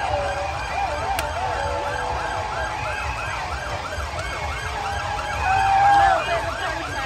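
Siren sounding in a fast yelp, its pitch sweeping up and down about four times a second, with a slower, lower wailing tone over the first two seconds. About five and a half seconds in, a loud steady held tone sounds for under a second.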